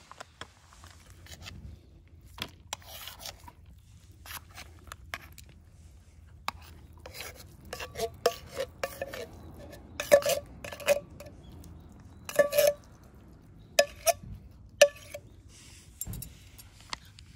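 A food dish knocking and clinking as it is eaten from: a run of sharp taps, thickest in the second half, many with a short ring.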